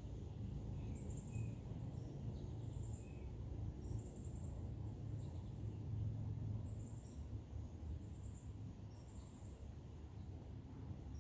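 Outdoor ambience: a low steady rumble under short, high chirps that repeat about once a second.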